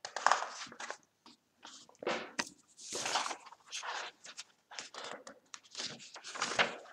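Pages of a paperback picture book turned and smoothed flat by hand: a string of short paper rustles and scrapes.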